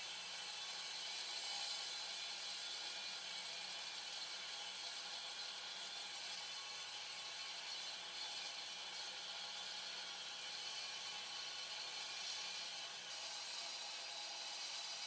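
Evolution R300DCT 12-inch electric concrete saw cutting concrete: a steady, hissy grinding whir that lightens in the low end near the end.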